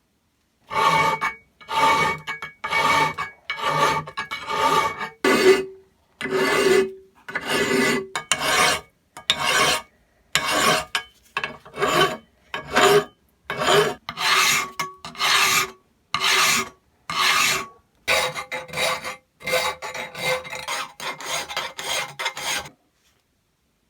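Hand file rasping over a metal part in steady back-and-forth strokes, about one a second, with the metal ringing faintly under the file. The strokes come quicker and shorter near the end.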